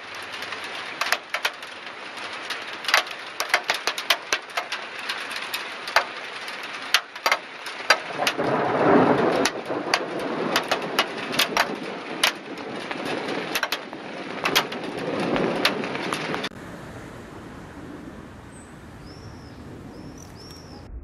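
Thunderstorm rain, with many sharp drop hits close by and thunder rumbling twice as the sound swells in the middle. About sixteen seconds in it cuts off suddenly to quieter steady rain, and a bird chirps a few times near the end.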